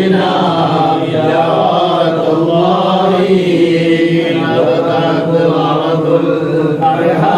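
A group of men chanting Islamic devotional verses together in Arabic, a Mawlid recitation, in a continuous melodic chant with drawn-out notes.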